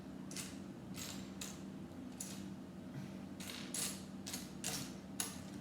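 Loose plastic Lego pieces clicking and rattling as they are sifted through by hand, in irregular clatters that come closer together after about three and a half seconds.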